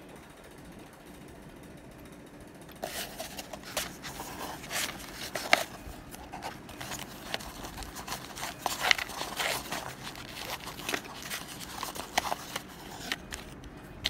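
Faint room tone, then from about three seconds in an irregular run of crisp crackles and clicks from baked Always Save cornstarch chunks crunching and breaking.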